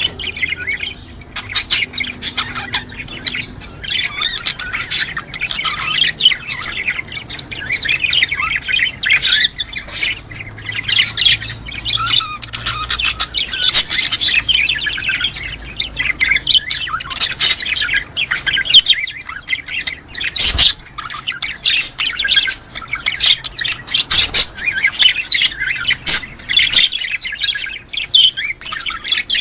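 A flock of small pet parrots chattering, chirping and squawking continuously with many overlapping calls. This is a breeding-stimulation recording of the kind played to caged birds to bring them into breeding condition. There is a single sharp click about twenty seconds in.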